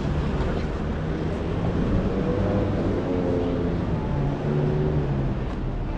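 City street ambience: steady traffic noise with a few low, held hums.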